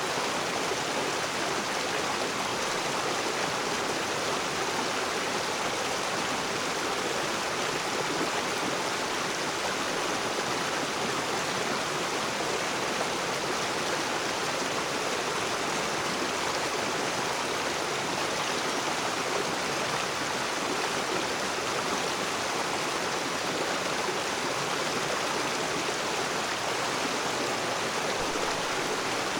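A river running over rocks: a steady, even rush of flowing water.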